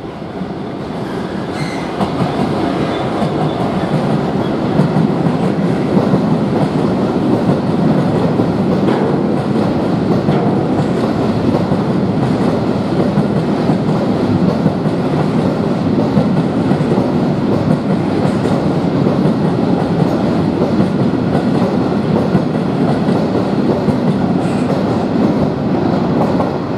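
Class 66 diesel locomotive and its long rake of freight box wagons rolling past, a steady heavy rumble with the clickety-clack of wheels over the rail joints. It swells in the first few seconds as the locomotive comes through and begins to fall away near the end as the last wagon passes.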